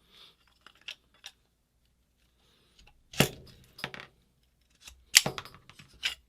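Small metal parts of a paintball marker being handled on a bench: a few light clicks, then two sharp metallic knocks about three and five seconds in, with softer clinks after each.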